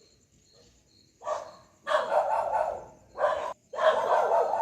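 A dog barking, starting about a second in: four short bouts of barks.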